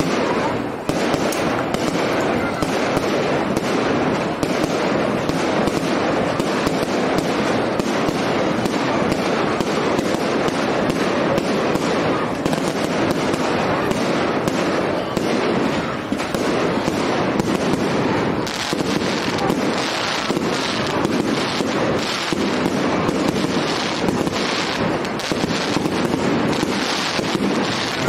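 Fireworks display: a dense, continuous barrage of crackling bursts and bangs with no pause, turning sharper and brighter about two-thirds of the way through.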